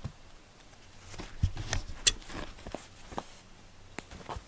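Cat playing with a string teaser toy on a quilted floor mat: scattered rustles, light taps and scrabbling thumps, busiest from about a second in, with one sharp click about halfway through and another tap near the end.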